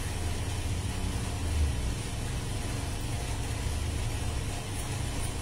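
Steady low rumble, like a motor or distant traffic, in the background, with a few faint high clicks near the end.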